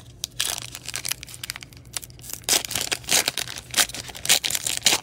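The shiny wrapper of a 2021 Panini Mosaic trading-card pack being torn open and crinkled by gloved hands: a run of irregular tearing and crinkling sounds.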